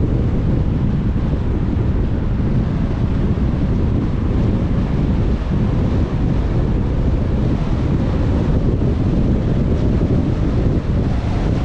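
Steady low rumble of road and wind noise from a car being driven.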